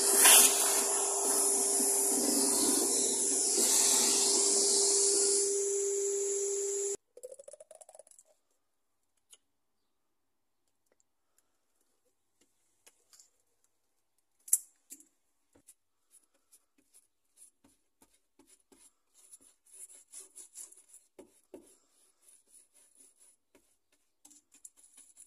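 A vacuum cleaner running steadily with a constant hum, cutting off suddenly about seven seconds in. After that there are only faint scattered taps and the soft scrapes of a paintbrush spreading white glue.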